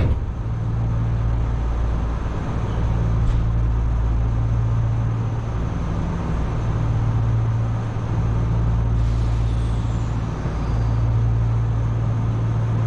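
Enshu Railway electric train (set 2004F) running between stations, heard from inside the front car: a steady low hum of motors and wheels on the rails that dips briefly a few times.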